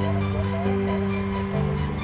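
Background music with held chords that change about once a second over a steady ticking beat.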